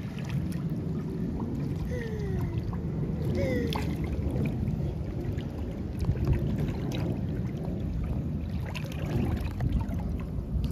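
Swimming-pool water sloshing and lapping around an inflatable baby float as it moves through the water, over a steady low rumble. Two short falling coos from the baby come about two and three and a half seconds in.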